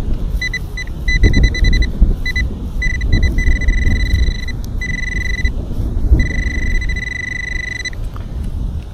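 Nokta AccuPoint pinpointer beeping at one high pitch, homing in on a buried metal target: short beeps come faster and faster, then give way to long unbroken tones, and the beeping stops near the end. Low rustling and a few thumps from handling and digging run underneath.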